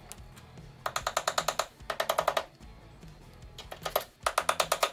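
Ratcheting clicks from the mechanism of a Volvo 850/V70 load-cover roll as it is turned by hand, about ten clicks a second in four short bursts with brief pauses between them.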